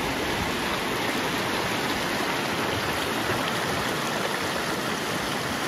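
Mountain river rushing over rocks in a shallow whitewater rapid: a steady, even rush of water.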